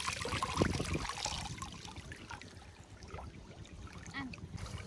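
Shallow canal water trickling and lightly splashing as it is stirred by hand. There are a few small knocks in the first second, and the sound grows quieter after that.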